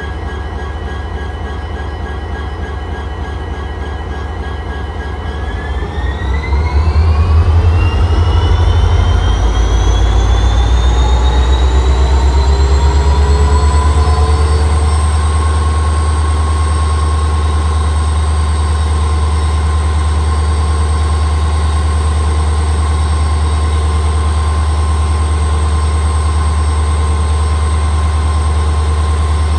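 EMD 16-cylinder 710G3B diesel engine of a WDP-4 locomotive running with a deep drone and a high turbine-like whine. About five seconds in, the engine speeds up: the whine glides upward over several seconds, grows louder, then holds steady at a higher pitch.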